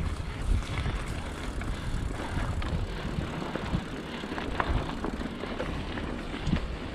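Mountain bike being ridden along a dirt trail: a steady low rumble of tyres and moving air, with scattered small knocks and rattles from the bike.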